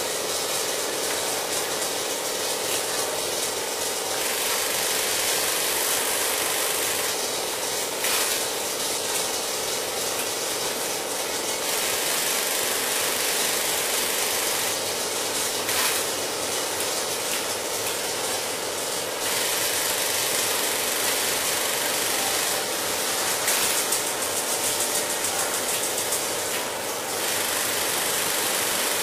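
Industrial sewing machine running at speed: a steady motor hum under dense, fast needle chatter. The high-pitched stitching noise swells in stretches of a few seconds as the machine sews.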